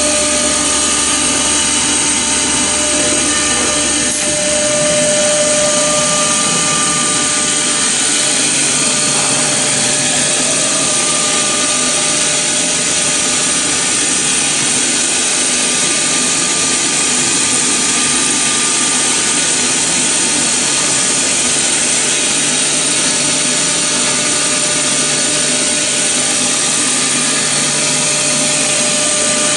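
CNC machine spindle running steadily while cutting foam: a continuous mechanical whine with several steady tones over a bright hiss.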